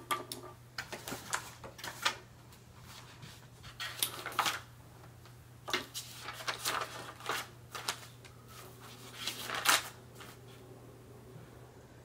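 Papers and small objects being handled and set aside: scattered rustles, taps and light knocks, the loudest just before the halfway point and again near the end, over a faint steady low hum.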